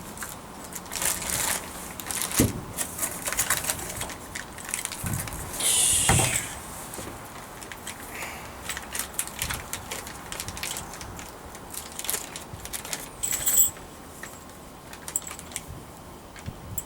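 Tools and hardware being handled: scattered clicks, light knocks and rattling, with a couple of louder knocks. No power tool is running.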